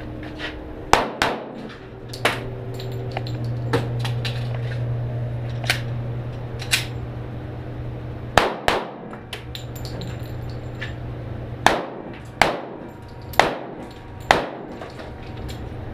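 Pistol shots fired in a string of about a dozen, spaced unevenly with some quick pairs, as a shooter works through a defensive pistol course of fire.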